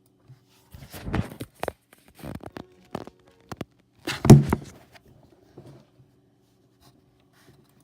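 Irregular clatter and knocks of a computer keyboard being handled and set down on a desk, with the heaviest thump about four seconds in.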